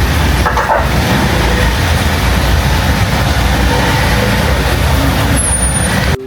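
Heavy engine noise: a loud, steady low rumble with hiss that cuts off abruptly near the end.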